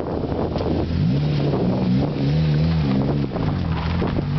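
Turbocharged Honda S2000's 2.0-litre four-cylinder engine pulling away from a standstill. The note climbs about a second in, then rises and falls for a second or so before settling.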